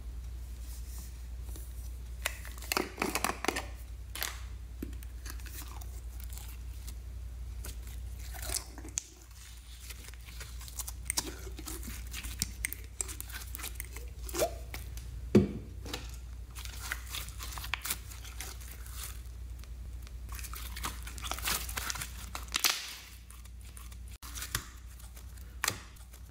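Glittery slime being pulled out of a plastic strawberry-shaped container and squeezed by hand into a glass tray, with scattered sticky clicks and crackles. A steady low hum runs underneath and drops away near the end.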